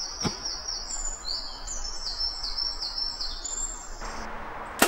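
A songbird singing a run of repeated high, slurred notes. Near the end comes one sharp snap, a compound bow being shot, with a fainter knock a moment later.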